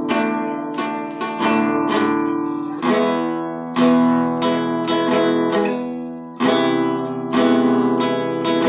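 Acoustic guitar being strummed, a run of chords each struck sharply and left to ring, as the introduction to a song.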